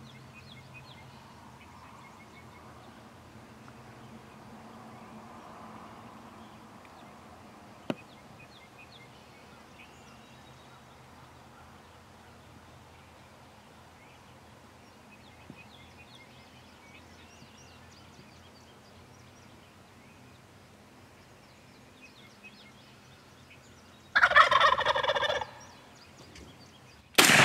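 Wild turkey gobbler gobbling once, loudly, about 24 seconds in, after a long quiet stretch with faint songbird chirps. A single shotgun blast goes off right at the end.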